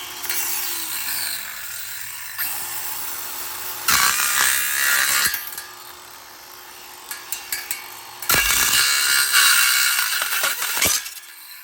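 Ryobi One+ cordless circular saw cutting into a laptop's plastic and metal casing in several loud, grinding bursts, with quieter spells between them where the motor tone winds down and speeds back up. The longest and loudest cut comes near the end.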